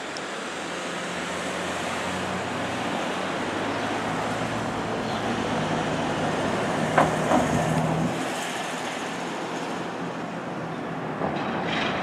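Street traffic noise with the engine of an approaching fire engine running, and two short clicks about seven seconds in.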